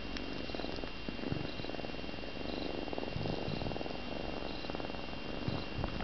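Balinese kitten purring close to the microphone, a continuous purr that swells and eases in stretches of about a second.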